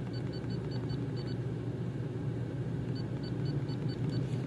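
Steady low rumble inside a hybrid car's cabin, with two runs of rapid, short high-pitched beeps, about seven a second: one at the start and one near the end.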